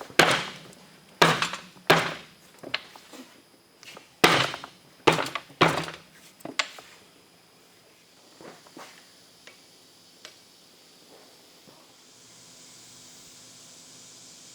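Hammer blows on metal during hand forging: six heavy strikes in two groups of three, then a few light taps. A steady hiss starts near the end.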